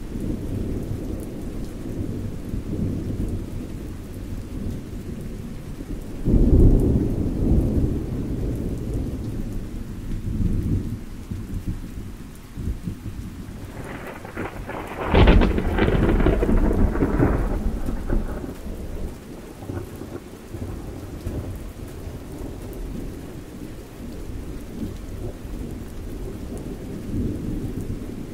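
Low rumbling noise, with two louder surges about six and fifteen seconds in, the second rougher and reaching higher.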